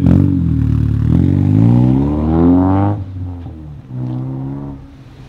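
Straight-piped Mazda Miata's four-cylinder engine revving up as the car pulls away, rising in pitch for about two and a half seconds. It drops off sharply at a gear change, then makes a second, shorter pull that fades as the car drives off.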